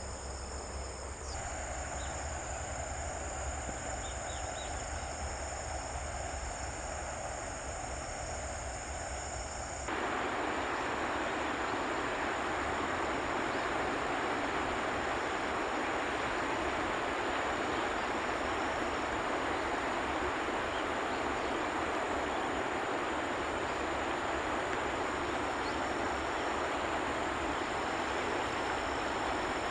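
Insects trilling steadily over an even rushing noise, which turns louder and fuller about ten seconds in.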